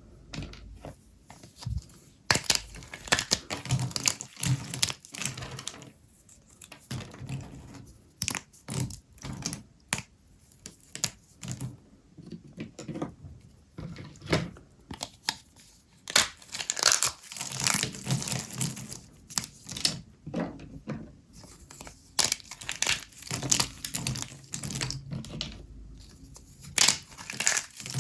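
Dry, starchy microwaved soap being crushed and broken, giving dense irregular crackling and snapping in clusters with short pauses between.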